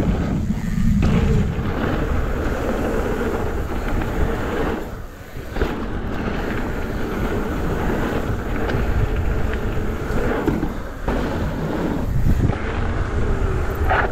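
Wind rushing over the microphone while a Cube Two15 downhill mountain bike on VeeTire Snap WCE tyres rolls fast down a trail, a continuous uneven rumble of tyre and trail noise. It briefly drops away about five seconds in.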